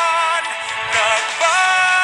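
Background music with a melody of long held notes.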